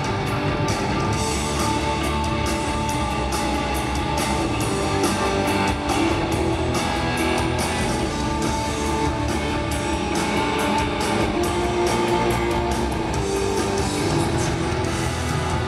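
Live hard rock band playing a song through an arena PA: distorted electric guitar, bass guitar and a large drum kit, with steady drum hits driving it.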